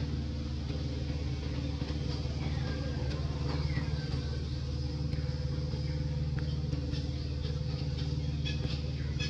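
A steady low engine hum, holding one pitch, like a motor running at idle.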